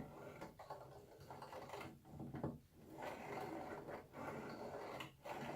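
Metal parts of a new bench drill press being worked by hand, likely the just-fitted feed handles and quill: several scraping, rattling strokes with short breaks between them.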